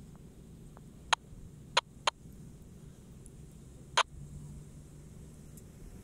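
4x4 SUV engine running faintly in the distance as it crawls across a steep sand dune, a low steady hum that firms into a steadier engine note about four seconds in. Four sharp clicks cut through it, the loudest sounds here.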